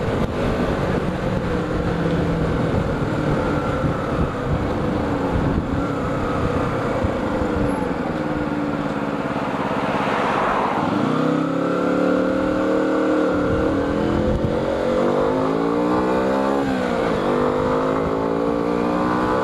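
Motorcycle engine running under a steady rush of wind and wet-road noise while riding, its pitch rising and falling as the bike speeds up and slows. About ten seconds in there is a brief louder rush of noise.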